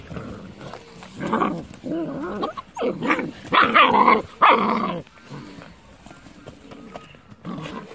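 Malaklı–Kangal cross puppies play-fighting, growling and yapping in a run of short calls between about one and five seconds in, with one more near the end.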